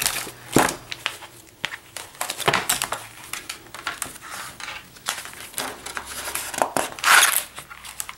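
Paper pages of a spiral-bound sketchbook being turned and handled, giving irregular rustling and crinkling swishes. The loudest rustle comes about seven seconds in.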